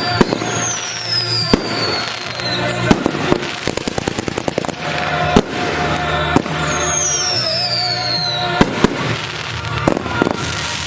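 A fireworks display going off over music. Sharp bangs fall at intervals, with a quick run of crackling reports about four seconds in.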